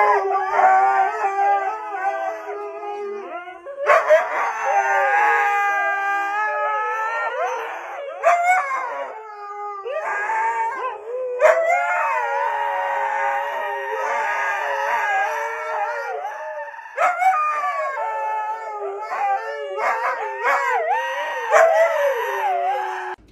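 Several huskies howling together: long, wavering howls in different pitches overlapping one another, gliding up and down.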